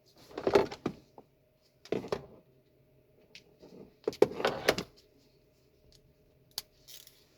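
Hand tools being handled on a car: metal clatter and rattling in three short spells, likely an 8 mm socket being fitted onto a ratchet and extension, with one sharp click near the end.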